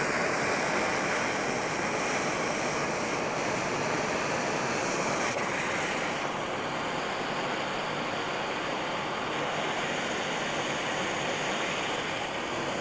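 Hand-held gas torch burning with a steady hiss as its flame heats a pump's top fitting, softening the hardened isocyanate that holds it.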